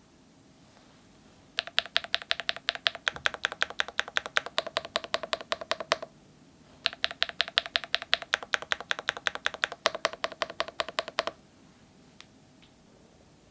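Fast typing on a mechanical keyboard with full-metal Awekeys keycaps: two runs of rapid key clacks, each about four seconds long, with a short pause between them. Each stroke leaves a short ringing tone.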